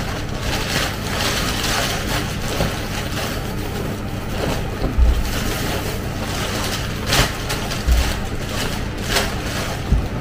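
A steady rushing noise throughout, with a few knocks and a couple of low thumps as things are moved about on the bottom shelves of a pantry.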